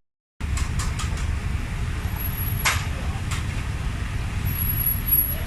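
Street ambience dominated by a steady low rumble of road traffic, with a few light clicks and a brief clatter about halfway through. The sound cuts out completely for the first half-second.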